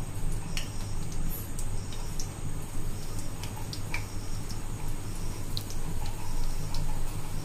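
Nimki dough pieces frying in lightly warm oil in a frying pan: a gentle sizzle with scattered small crackling ticks over a low steady hum. The oil is kept only lightly hot so the nimki fry slowly.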